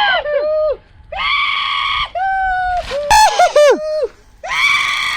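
Young men's voices shouting and whooping in long, high-pitched yells, several held for about a second, cheering the launch of a giant paper airplane.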